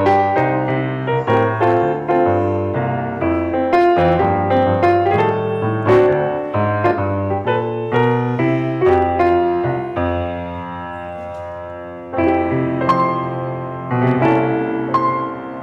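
Piano playing a slow, gentle piece, with chords and melody notes struck and left ringing. About ten seconds in, one held chord fades away before the playing picks up again.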